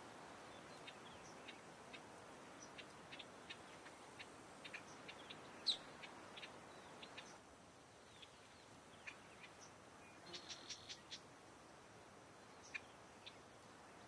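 Faint wetland ambience: a soft steady hiss with scattered short, high chirps and ticks from small wild creatures, and a quick run of about six notes around ten seconds in. The background hush drops slightly about seven seconds in.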